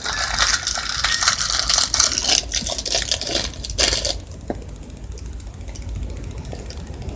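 Close crinkling and clicking of something being handled, dense for about four seconds and then sparser and quieter.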